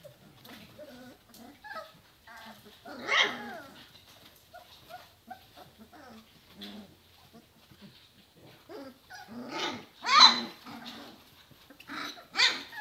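German shorthaired pointer puppies whining and yelping in many short calls, with louder yelps about three seconds in, around ten seconds in, and near the end.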